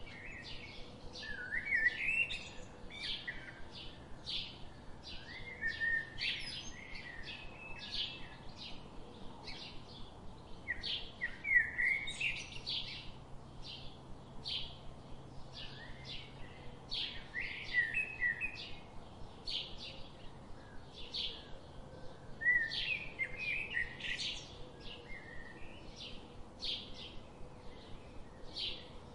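Birds chirping: a steady series of short high chirps, about two a second, broken every few seconds by a longer warbling phrase.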